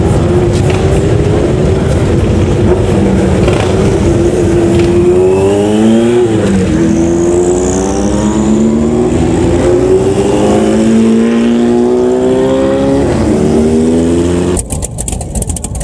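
Large motorcycle engines pulling away, their pitch rising over and over and dropping back twice as they shift up through the gears. Near the end the sound cuts off suddenly and gives way to a burst of sharp clicks.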